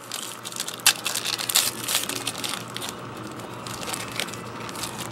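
A trading card pack's wrapper crinkling as it is handled and torn open, with a run of sharp crackles in the first couple of seconds, then softer rustling.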